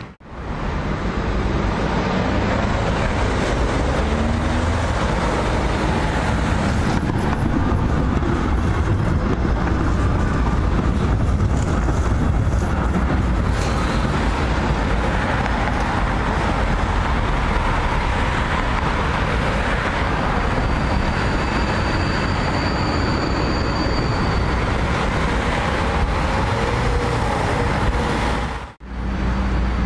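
Vienna city tram rolling past close by on curved street track, its steel wheels running on the rails, over steady road traffic noise. A thin high whine sounds for a few seconds a little past the middle.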